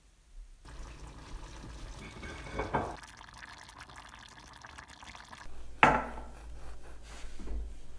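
A pot of tomato-based stew simmering and being stirred with a wooden spoon in a steel pot. About five and a half seconds in this gives way to a knife cutting through a soft bread bun on a wooden cutting board, with one sharp knock on the board just before six seconds.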